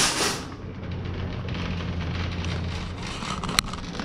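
Metal shopping cart being pushed, its wheels rolling with a steady low rumble and the frame rattling lightly. It follows a short burst of noise right at the start, and there is a single sharp click about three and a half seconds in.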